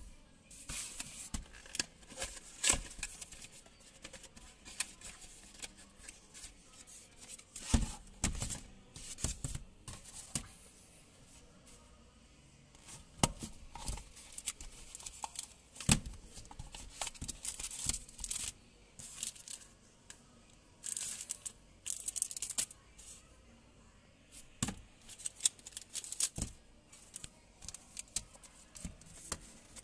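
Handling noise of a sunglasses unboxing: a grey cardboard box and a black snap-flap sunglasses case being handled and opened, with irregular clicks, scrapes and rustles.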